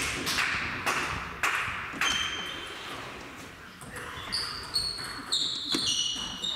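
Table tennis ball clicking off bats and table in a reverberant sports hall, with rubber-soled shoes squeaking on the hall floor during a rally in the second half.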